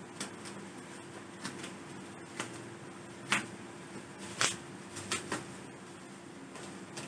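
Small scissors snipping and a plastic-wrapped, taped parcel crinkling as it is cut open: irregular sharp clicks and crackles, the loudest a little past halfway.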